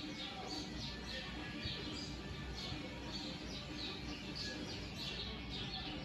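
Samsung WW85J43 front-load washing machine tumbling a foamy load of wet dish towels in its wash cycle: water and suds sloshing and splashing against the door glass about three times a second over a steady low motor hum.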